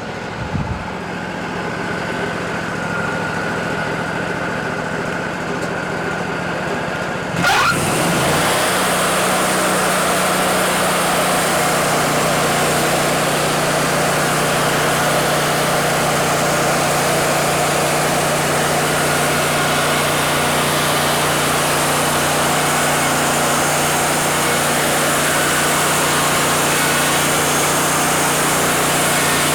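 Wood-Mizer LT40 band sawmill running steadily. About seven seconds in, the engine revs up with a short rising whine as the band blade engages. Then a steady, louder sawing noise follows as the blade cuts through a cedar log.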